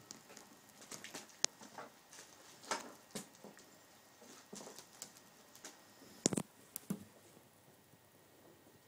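Ferret clambering on a lace curtain: irregular scratching, clicking and scrabbling of its claws on the fabric, with a louder pair of knocks a little over six seconds in.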